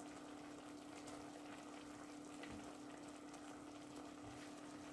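Faint, steady sizzle of seasoned beef pieces cooking in their own juices in a stainless steel pot on a gas stove, with a steady low hum underneath.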